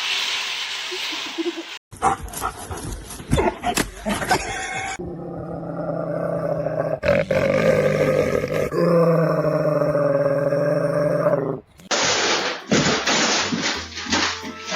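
A pet animal calling in a long, drawn-out, low-pitched voice for about six seconds, between short stretches of hiss and knocking.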